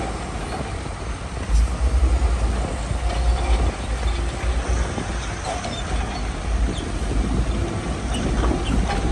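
Diesel engines of heavy earthmoving machinery running steadily, with a deep rumble that swells about one and a half seconds in.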